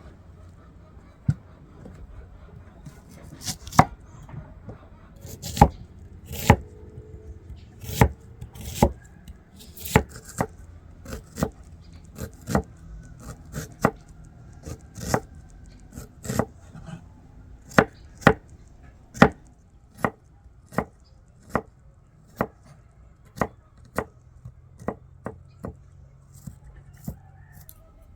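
Knife chopping food on a cutting board: separate, uneven strokes, about one or two a second.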